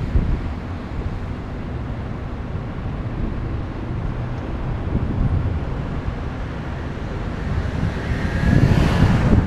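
Wind buffeting an action camera's microphone while riding along a road, a steady low rumble with road noise. Near the end an oncoming car passes close by, growing louder for about a second.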